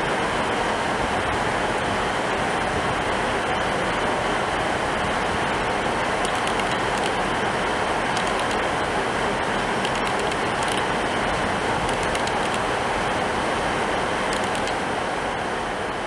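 Steady rushing noise of a Class 170 Turbostar diesel multiple unit pulling away from the platform, fading out near the end.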